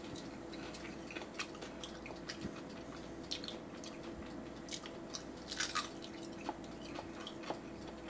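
Close-up chewing of a deep-fried macaroni-and-cheese bite: soft, irregular wet clicks and small crunches of the batter coating, over a faint steady hum.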